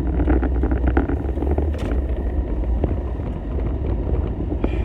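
Road rumble inside a moving car's cabin, steady and loud, with a crackling, vibrating rattle over it.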